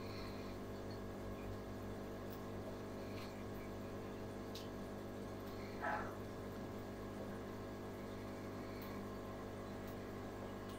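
Steady electrical hum with many overtones from aquarium equipment, with a few faint ticks and one short scratchy sound about six seconds in.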